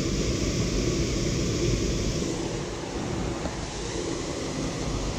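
Steady rushing water of a small waterfall, an even noise with no breaks.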